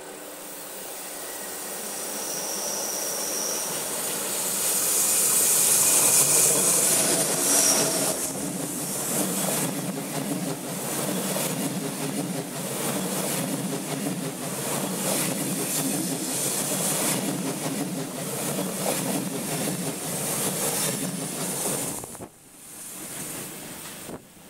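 ÖBB Railjet passenger train coming out of a tunnel and passing close by: it grows louder over the first several seconds, then runs past with a rapid, steady clatter of wheels on the rails. The sound drops off suddenly about 22 seconds in as the last coach goes by, leaving a fainter trailing noise.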